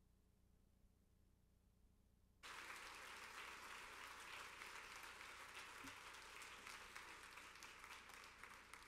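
Near silence with a faint low hum, then an audience breaks into applause suddenly about two and a half seconds in, a dense clapping that eases slightly near the end.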